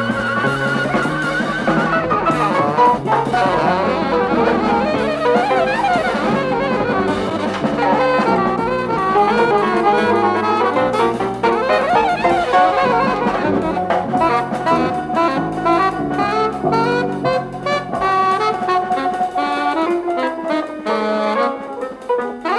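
Jazz band music with saxophone, trumpet, a walking bass line and drum kit.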